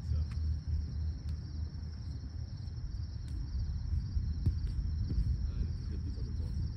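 Uneven low rumble of wind on the microphone, with a steady high insect trill running through it.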